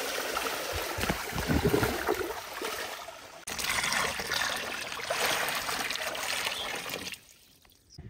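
Water sloshing and splashing out as a plastic tub of dirty bathwater is tipped out. Then hot water pours steadily from a container into the plastic tub, stopping shortly before the end.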